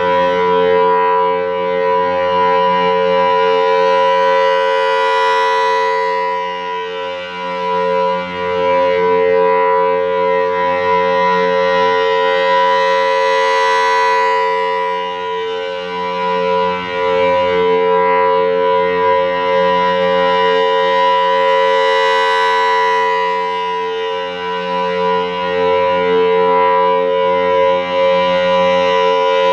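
Federal Signal Thunderbolt rotating siren sounding its steady Full Alert tone: a two-note chord from its 5/6-port rotor. The sound swells and fades about every eight seconds as the rotating horn sweeps past.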